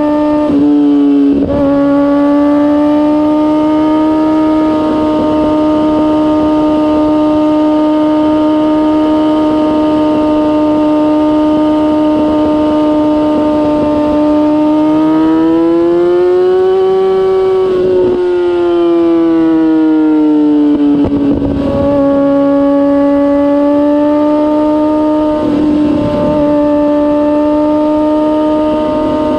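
Kawasaki ZX-6R inline-four through a MIVV GP exhaust, running at high, steady revs while riding. Its pitch climbs and falls back about halfway through, and it dips briefly a few times.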